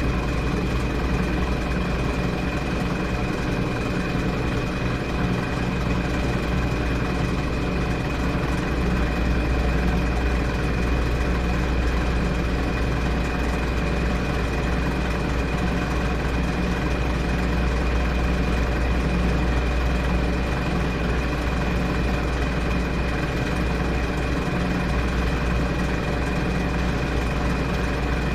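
Washing machine running through its cycle: a steady low motor hum with a faint high whine above it, unchanging throughout.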